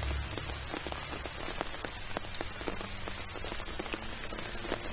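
Rain falling: a steady hiss full of many small scattered ticks, over a low hum.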